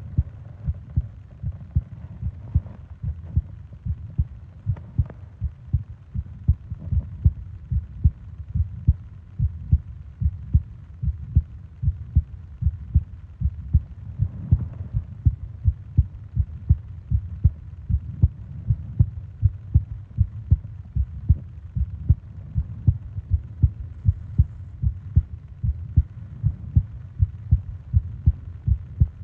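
A human heartbeat picked up close on a microphone: a steady, regular run of soft low thumps.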